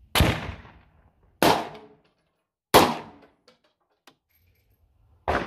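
Four rifle shots from a Bear Creek AR-style rifle chambered in 7.62x39. Three come about 1.3 seconds apart, and the fourth follows near the end after a longer pause.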